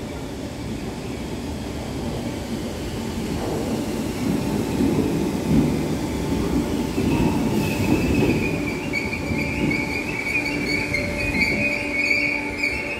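Merseyrail Class 507 electric multiple unit pulling into an underground station platform, its rumble building as it draws near. About halfway in a steady high-pitched squeal sets in and carries on as the train slows to a stop.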